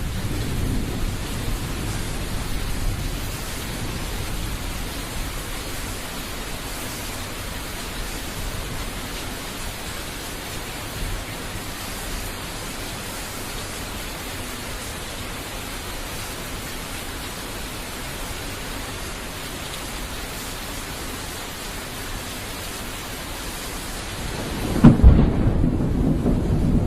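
Thunderstorm: steady heavy rain with thunder rumbling low in the first few seconds, then a sudden sharp thunderclap near the end that rolls on into loud rumbling.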